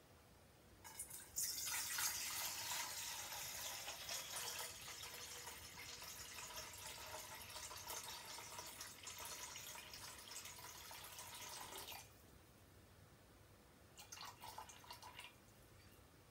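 Water pouring in a steady stream from a plastic jug for about ten seconds, then stopping suddenly. A few brief trickles and drips follow near the end.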